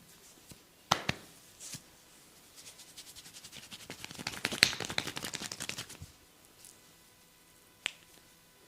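Hand strikes during a massage: two sharp pops about a second in, then a fast run of taps that builds and stops about six seconds in, and one more sharp pop near the end.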